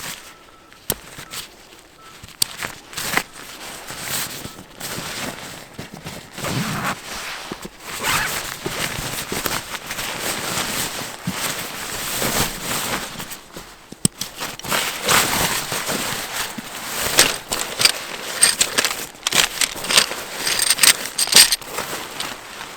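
Footsteps crunching through snow, with scattered sharp clicks.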